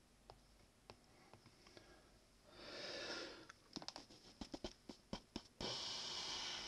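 Light taps and clicks of a stylus on an iPad's glass screen, quick and irregular in the middle, with two breathy exhales close to the microphone, each about a second long, one before the taps and one after.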